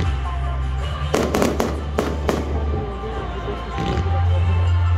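Fireworks going off: a quick run of sharp bangs and crackle between about one and two and a half seconds in, and a fainter bang near four seconds. Music with a heavy steady bass plays under them.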